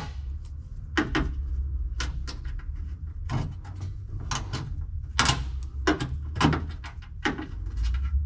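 Small metal hand tool clicking and knocking against the truck's rocker-panel fasteners and trim, in irregular sharp taps about one or two a second. A steady low hum runs underneath.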